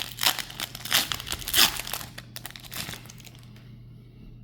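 Foil Pokémon TCG booster pack wrapper being torn open and crinkled, a quick run of sharp crackles that dies away about three seconds in.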